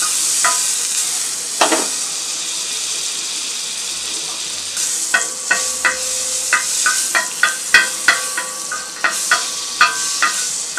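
Butter sizzling as it melts and foams on a hot tawa: a steady hiss, and from about five seconds in, a quick run of sharp crackles and pops.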